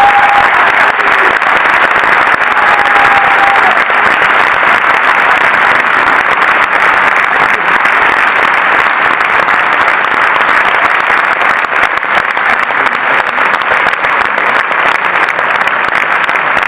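A cinema audience applauding steadily, many hands clapping in a dense, even patter, with a brief whistle or cheer near the start.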